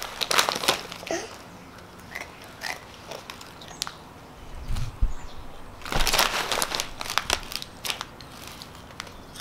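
Plastic snack bag of crispy noodles crinkling as it is handled and shaken, in short scattered bursts, the densest and loudest run about six seconds in.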